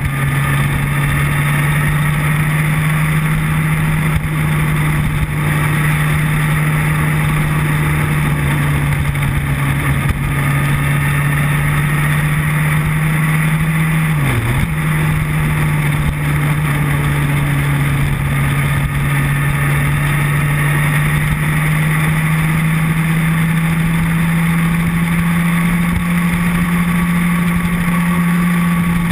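Motorcycle engine running at a steady cruise under a constant rush of wind and road noise; its note dips briefly about halfway through, then picks up and slowly climbs.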